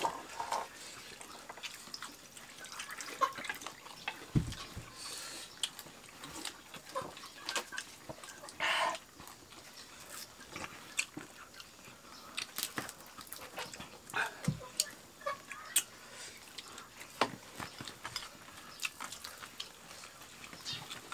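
People eating with their hands from a shared spread on the floor: quiet chewing and scattered small clicks and taps of a spoon and dishes, with a couple of dull thumps.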